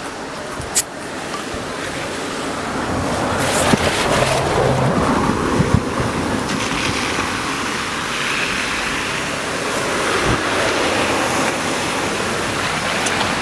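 Water jetting high out of a burst pipe in the road, a steady rushing hiss that grows louder as it is approached, with wind buffeting the microphone.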